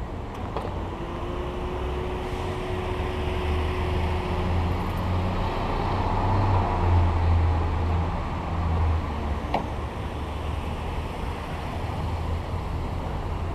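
Road traffic: motor vehicles passing with a steady low engine rumble and tyre noise, swelling toward the middle and easing off again.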